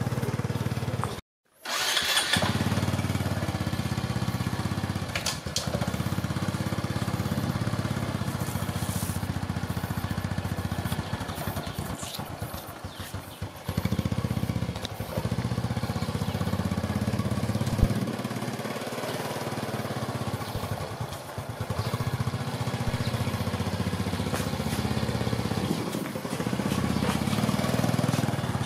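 Small Honda motorbike engine running steadily at low revs. The sound cuts out completely for a moment about a second in.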